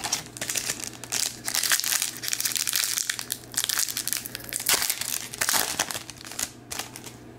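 Foil hockey card pack wrapper crinkling and crackling in the hands as it is torn open and the cards are pulled out, in irregular bursts that die away near the end.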